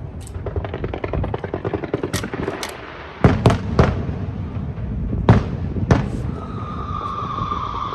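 Aerial fireworks going off: dense crackling for the first few seconds, then a handful of sharp separate bangs, and near the end a steady high whistle.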